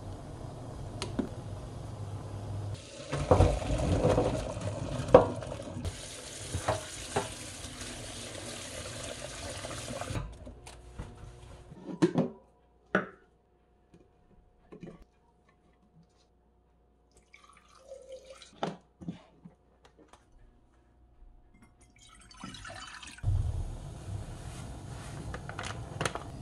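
Kitchen sounds: water running and splashing, with a wooden spoon knocking against a pot of broccoli blanching in water. A quieter middle stretch holds scattered knocks and clatter as the broccoli is moved into a blender jar, and near the end a steady hiss of the pot on the gas burner returns.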